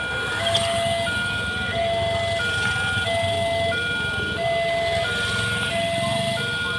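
Railway level-crossing warning alarm sounding, alternating steadily between a low and a higher electronic tone, each held about two-thirds of a second. Motorbike and car engines run underneath.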